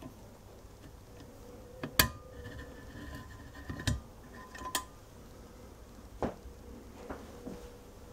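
Brass oil-lamp burner fittings and glass globe clinking as the gallery and globe are set onto the lit burner: a handful of sharp clinks, the loudest about two seconds in, some leaving a short metallic ring.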